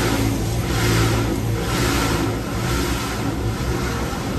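Cloth wash strips of a tunnel car wash swishing and slapping across the windshield, heard from inside the car, in sweeps that swell about once a second over a steady low hum.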